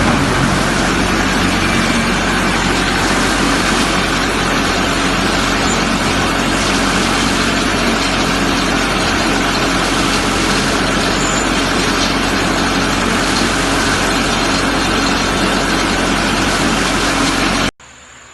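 Diesel engine of a concrete pump running steadily after being started, then cutting off abruptly near the end.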